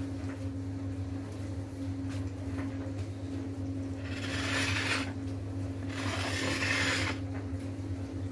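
A ceramic plate scraped and slid across a glass-ceramic hob twice, each scrape about a second long, over a steady low hum.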